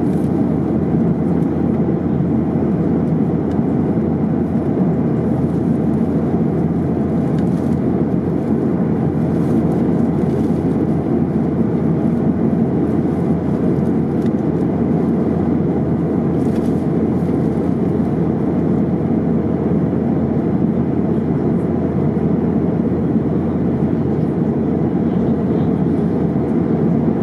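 Steady, deep roar of engine and airflow noise inside the cabin of a Boeing 737-800 airliner in flight.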